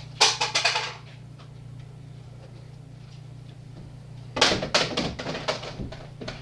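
Rapid plastic clicking and rattling of an empty Nerf blaster being worked by hand, in two bursts: one at the start and one about four seconds in. A steady low hum runs underneath.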